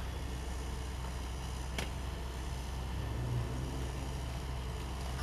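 Hydraulic excavator's diesel engine running steadily with a low hum, and one sharp knock about two seconds in.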